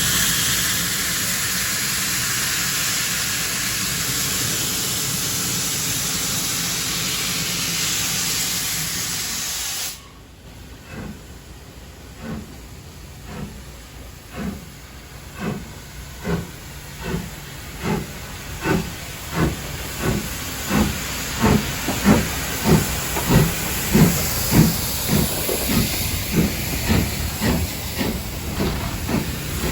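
Steam locomotive letting off steam with a loud, steady hiss that cuts off suddenly about ten seconds in. Then its exhaust beats begin, slow at first and quickening as it pulls away, growing louder to about two chuffs a second.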